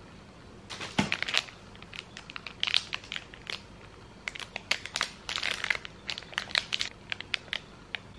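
Packaging crinkling and crackling as souvenirs are handled and unwrapped, in quick irregular bursts that start about a second in.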